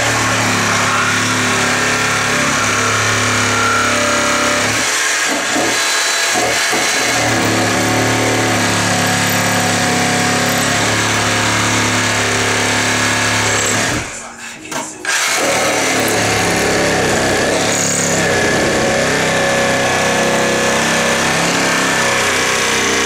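Cordless reciprocating saw running steadily as its blade cuts into a wooden board inside the shower-valve wall opening, deepening the space for the faucet body. It stops for about a second a little past halfway, then runs on.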